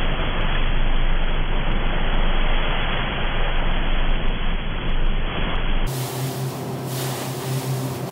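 Rushing water and wind buffeting the microphone from a fast-moving boat. About six seconds in the sound cuts to a steady motorboat engine hum under the water noise.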